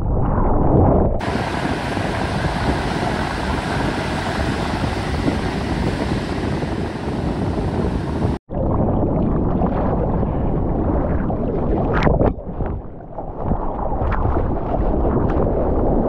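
Ocean water rushing and surf on a surfer's waterproof action camera, with wind buffeting the microphone. About a second in, it switches to a steadier, hissier sound of waves breaking from shore. That sound cuts off abruptly past the middle, and the rushing water and wind noise of riding a wave return.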